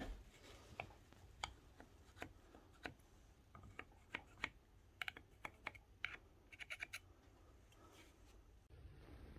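Faint, scattered scrapes and clicks of a metal knife blade working against a scooter's rubber handlebar grip. They come in short irregular strokes, most closely bunched midway.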